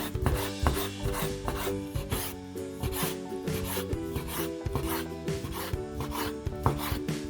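Repeated rasping, scraping strokes of kitchen food preparation, over steady background music.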